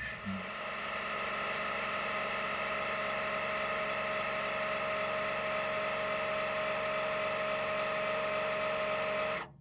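AirLift SmartAir II's small frame-mounted air compressor running steadily, a high whine over a lower hum, automatically inflating the LoadLifter air bags once the height sensor registers weight on the trailer. It stops abruptly near the end.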